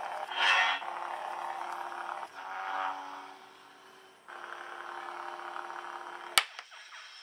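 Lightsaber sound-effect chip playing its electronic hum, with louder swing whooshes about half a second in and near three seconds. A sharp crack comes a little past six seconds, and the hum stops.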